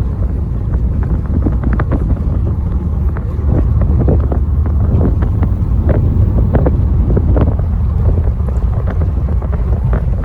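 Steady low rumble of wind buffeting the microphone on a moving vehicle, with scattered short clicks and knocks throughout.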